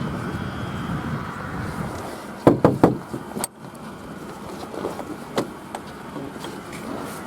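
Three quick, loud knocks on a lorry's cab door about two and a half seconds in, over a steady low rumble, followed by a few faint clicks.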